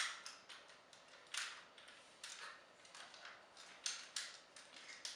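Plastic parts of a Transformers action figure being handled and moved, giving irregular sharp clicks and light knocks as joints and pieces are rotated and snapped into place.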